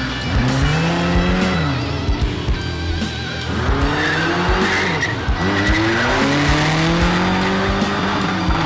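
Demolition drag race cars' engines revving repeatedly, rising and falling in pitch, under background music with a steady beat.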